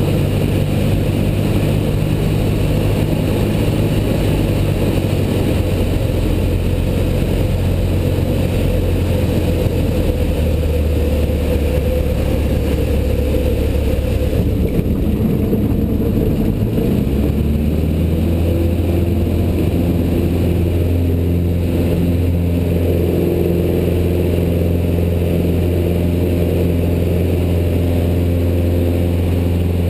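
Single-engine light aircraft's piston engine and propeller running, heard inside the cockpit through a touch-and-go. The engine note is held low through the landing and ground roll, then rises to takeoff power a little past halfway through and stays steady on the climb-out.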